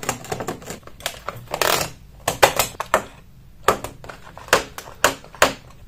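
Stiff white plastic insulating sheet crackling and clicking as it is peeled off and lifted from a battery pack. A dense flurry of crackles comes first, then a few separate sharp clicks in the last half.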